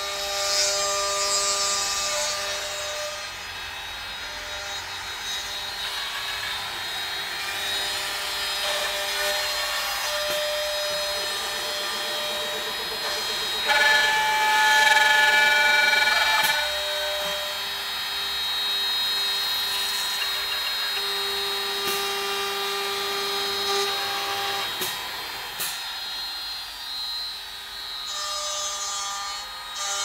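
Wooden-door lock-hole and hinge-slot drilling machine at work: its spindle motors whine at steady pitches as they drill and mill into the wooden door, louder for a couple of seconds near the middle, with a few short clicks.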